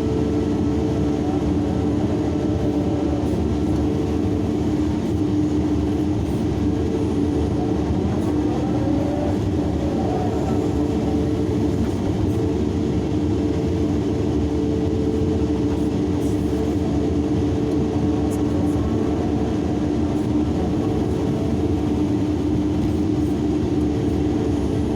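Large hydraulic excavator running steadily while it loads a dump truck: a constant engine drone with two steady tones over it.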